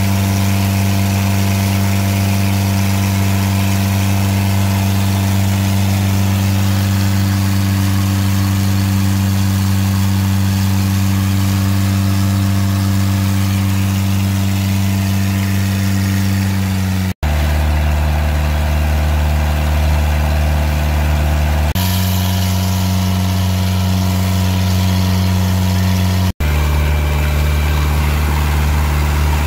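Motorboat engine running steadily while under way, a constant low drone. The sound cuts out for an instant twice, about halfway through and near the end, and the drone's pitch shifts slightly after each cut.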